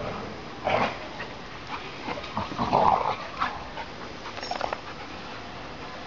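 Two Labrador retrievers play-fighting, giving short growls and whimpers in irregular bursts, loudest about halfway through. The sounds are play, not real aggression.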